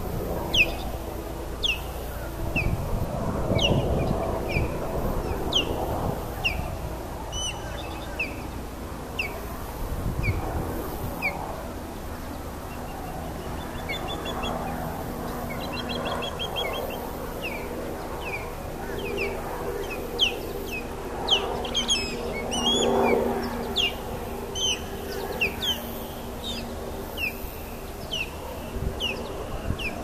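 Osprey calling: a long series of short, high, downslurred whistled chirps, about one or two a second.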